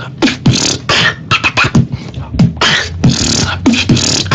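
A person beatboxing: a steady, quick beat of low, dropping kick-drum thumps alternating with sharp hissing snare and hi-hat sounds made with the mouth.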